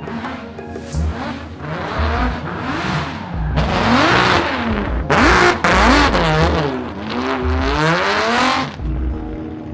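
Aston Martin Vantage drift car sliding past with tyres screeching. Its engine revs swing up and down again and again as the throttle is worked through the drift, loudest midway as it passes.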